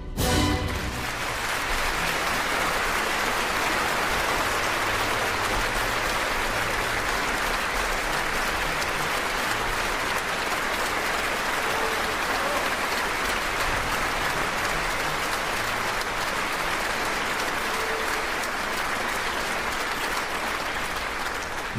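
Theatre audience applauding steadily for about twenty seconds, just after an orchestra's last chord dies away at the very start.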